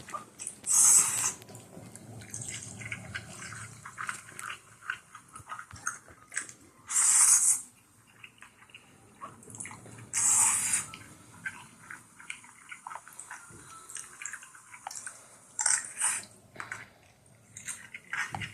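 Close-up eating sounds of someone chewing leftover spaghetti, with many small clicks and crackles. Four short, loud, hissy sounds break in, about 1, 7, 10 and 16 seconds in.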